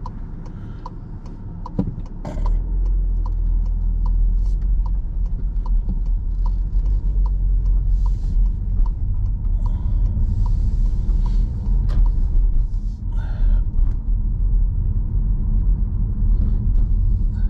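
Inside a moving car: the turn indicator ticks steadily, a little more than once a second, for about the first ten seconds while the car makes a right turn. About two seconds in, the low engine and road rumble gets louder as the car pulls away, and it then runs on steadily.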